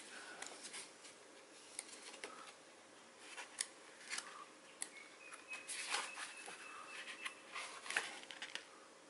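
Pages of a glossy paper instruction booklet being turned and handled: quiet, scattered paper swishes and crackles.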